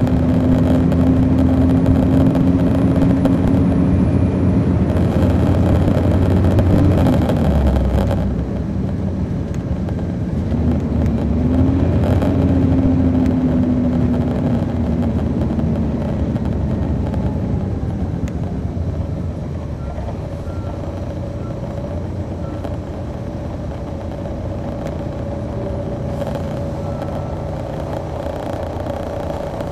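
On-board sound of a 2002 MCI D4000 coach's Detroit Diesel Series 60 diesel engine pulling the bus along. The engine note rises, dips, climbs again and then slides down. In the last third it runs quieter and steadier.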